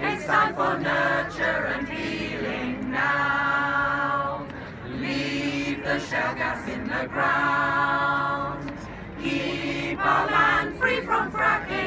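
Choir of women and men singing unaccompanied, with long held notes in the middle and quicker word-by-word phrases near the start and end.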